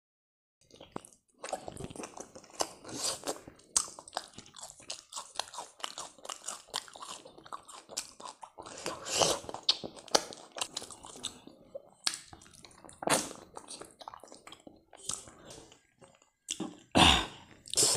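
Close-miked chewing of a person eating pickled trotter meat with rice by hand: a run of short, irregular clicks and mouth smacks, louder at a few moments.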